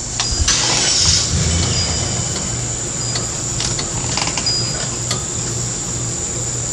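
A vehicle engine running steadily with a low, pulsing note, while a rope pulls a tree over, with scattered sharp cracks and snaps over it.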